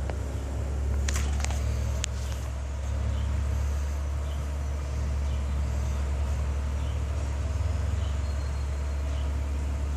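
Caterpillar 12E motor grader's diesel engine running steadily at work, with a few sharp metallic knocks a second or two in.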